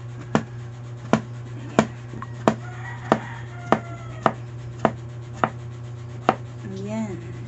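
Kitchen knife chopping bottle gourd (upo) into small pieces on a cutting board: about ten even strokes, roughly one every two-thirds of a second.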